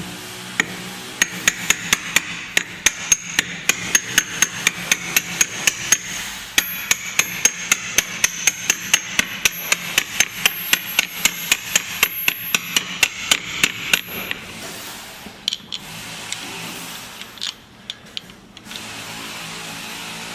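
Hammer blows on metal in a quick, steady rhythm of about three to four a second, with a ringing note through part of the run, stopping about fourteen seconds in; a few scattered knocks follow.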